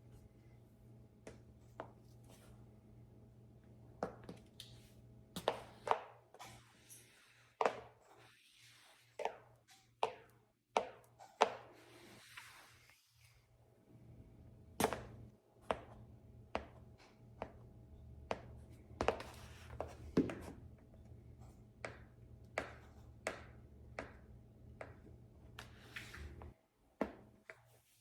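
High-heeled shoes walking on a hard floor: sharp heel clicks, uneven, about one to two a second, with a few scuffing slides between steps.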